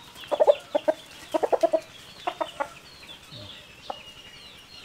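Chickens clucking in three quick runs of short clucks, then faint high thin chirps near the end.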